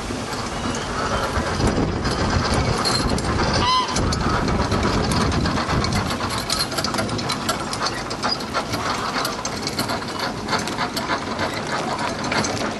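Strong wind buffeting the microphone: a steady rumbling rush with crackle, without a break.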